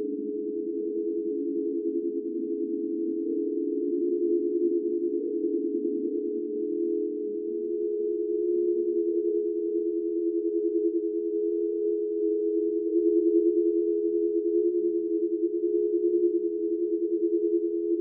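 Ghost sound effect: a continuous drone of a few close, pure low-to-middle tones with a fast flutter running through them, growing slightly louder over time.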